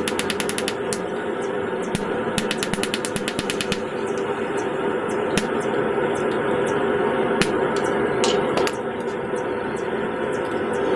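Power hammer driving a cutter into hot steel to cut out a hammer's claw: two quick runs of rapid blows, about ten a second, at the start and about two seconds in, then a few single blows, over a steady background rush.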